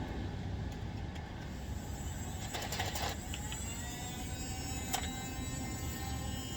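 Small electric motor of a Nerf blaster whirring with a high, steady whine, rising in pitch after a click about three seconds in, with a few more sharp clicks, over a steady low rumble.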